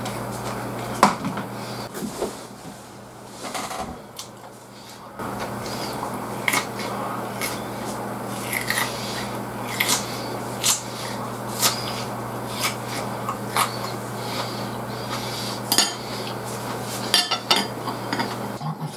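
Chopsticks clicking and scraping against a plate of food, with close-up chewing sounds of someone eating. Sharp clicks come every second or so, over a steady low hum.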